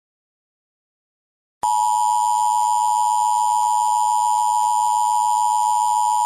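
Emergency Alert System attention signal: a steady two-tone alarm tone (853 and 960 Hz together) that starts abruptly about a second and a half in and holds unbroken.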